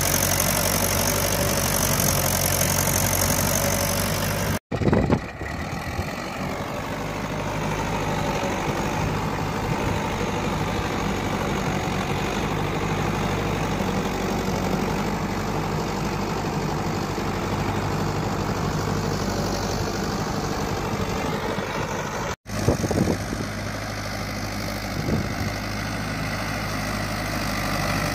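Mahindra 585 DI tractor's four-cylinder diesel engine running steadily under load as it pulls a blade leveller through loose sandy soil. The drone cuts out for an instant twice, about five seconds in and near the end, and comes back each time with a short bump.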